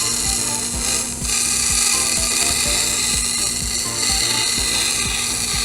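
Plastic particles rattling and clicking in a rapid, irregular stream as they are sucked up the nozzle of an activated-carbon vacuum cleaner, over a steady hiss of in-rushing air and a low hum.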